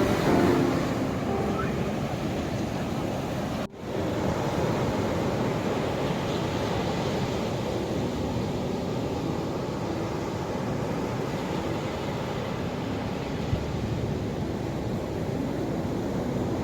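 Ocean surf washing in a steady rush of waves, with a brief break in the sound about four seconds in.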